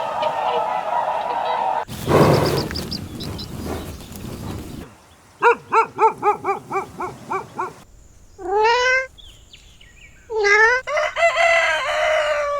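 Chickens calling: a noisy stretch and a short burst, then a rapid run of clucks at about five a second, then rising crowing calls, the last drawn out near the end.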